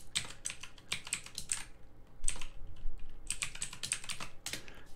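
Typing on a computer keyboard: irregular runs of quick key clicks, with a short pause about two seconds in.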